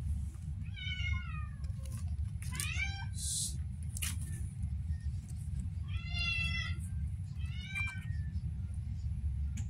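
Young kittens mewing: four short, high-pitched mews, one of them sliding upward in pitch, with a brief scratchy noise in the middle and a steady low hum underneath.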